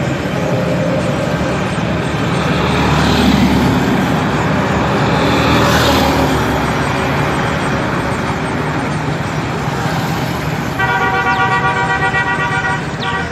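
Busy road traffic passing close by, swelling as a vehicle goes past about three to six seconds in. Near the end a vehicle horn sounds for about two and a half seconds.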